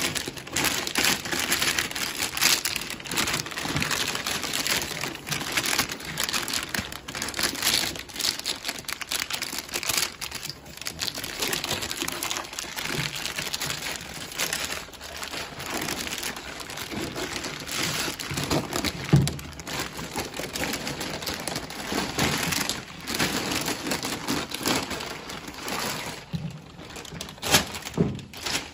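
Crinkling and crackling of plastic and foil packaging bags as they are pulled open and stripped off a crypto-mining machine, irregular throughout, with a few sharper, louder crackles.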